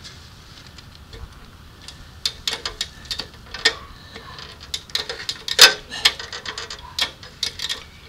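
Irregular sharp clicks and ticks from a gazebo-anchor load-test rig as the upward pull on its crane scale keeps rising, with the loudest click a little past halfway.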